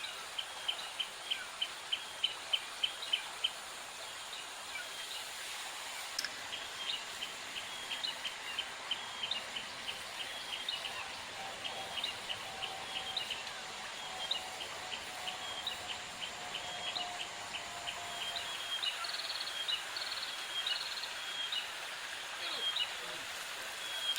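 Outdoor rural ambience: a steady hiss with repeated trains of rapid, high-pitched chirps, about six a second, loudest in the first few seconds. A faint low drone passes in the middle.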